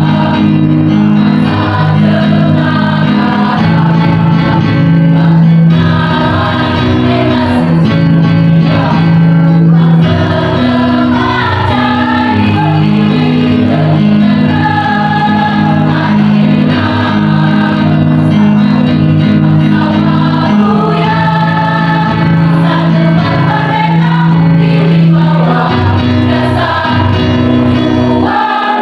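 Mixed choir of women and men singing a song together in several parts, with long held notes.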